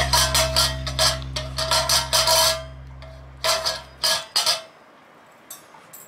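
Miniature pinscher eating from a bowl in a raised stand, the bowl clattering and clicking in quick irregular strokes, over the last held chord of background music, which ends about four seconds in. After that only a few faint clicks.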